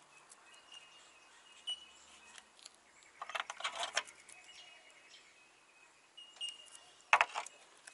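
Gloved hands handling a small resin cup and paper during a fiberglass layup: two short bouts of light clinks and rustling, about three seconds in and again about seven seconds in, over faint birdsong with short high chirps.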